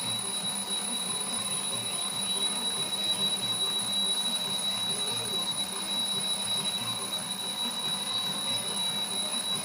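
A steady, high-pitched alarm tone ringing without a break, over a faint, regular low pulsing.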